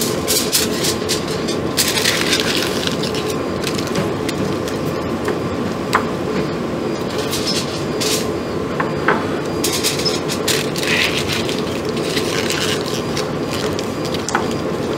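Aluminium foil crinkling and crackling in repeated bursts as it is pressed and crimped around the tops of glass BOD bottles, over a steady background hum.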